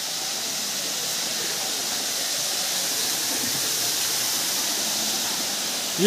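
Kakolat waterfall's water falling into its pool: a steady rushing hiss.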